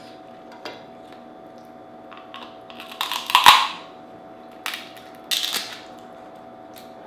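Dungeness crab shell being cracked and snapped apart by hand: a few crisp cracks, the loudest about three seconds in, then two more shorter ones after that. A faint steady hum runs underneath.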